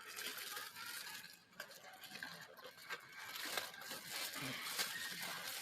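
Protective packaging being handled: irregular rustling and crinkling with small clicks and knocks.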